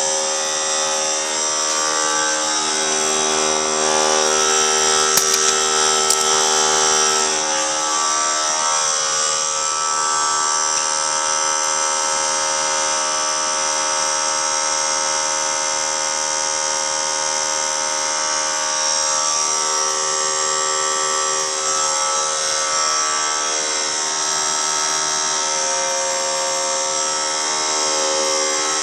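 Harbor Freight 1/3-horsepower pancake air compressor running steadily, its motor and pump buzzing as it refills the tank, a little sluggish on the way up to about 60 psi.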